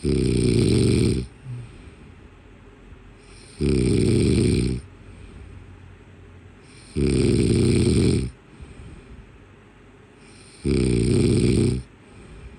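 Snoring, repeated four times at an even pace about every three and a half seconds, each snore lasting a little over a second.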